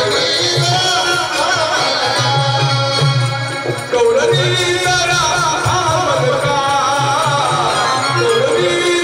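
Live Marathi tamasha folk music: singing over a steady dholki drum beat.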